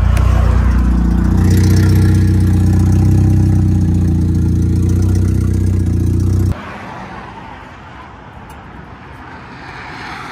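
Turbocharged Saab 2.0 L four-cylinder (B207R) engine running with a steady drone, heard from inside the cabin while driving. The sound cuts off abruptly about six and a half seconds in, leaving a much quieter outdoor hum.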